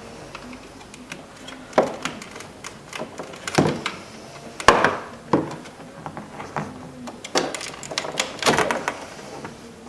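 Irregular plastic clicks, knocks and scraping as flat-blade screwdrivers pry at the locking tabs holding a power window switch in its plastic door bezel; the loudest knock comes about halfway through.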